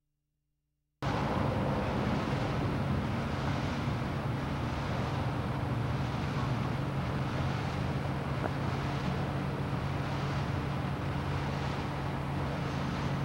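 About a second of silence, then steady outdoor background noise: wind on the microphone over a low, steady hum.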